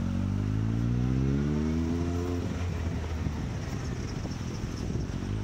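Motorcycle engine accelerating, its pitch rising steadily for about two and a half seconds, then dropping away as the throttle is closed. Rougher, uneven engine and road noise follows.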